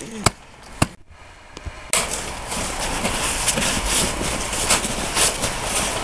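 Snow shovels knocking into packed snow a couple of times, then, after a brief break, a steady rough rustling noise with scattered crackles.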